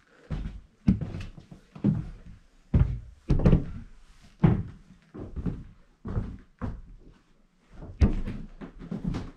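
Footsteps on the bare wooden stairs and floorboards of an old farmhouse: about a dozen heavy steps, half a second to a second apart.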